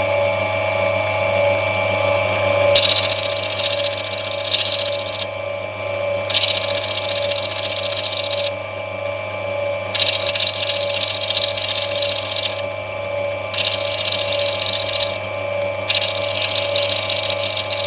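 Lapidary grinding wheel running with a steady motor hum, as a black opal is pressed against the wet wheel in five passes of a few seconds each, each pass a loud hiss. The stone is being rubbed back to clear grey webbing.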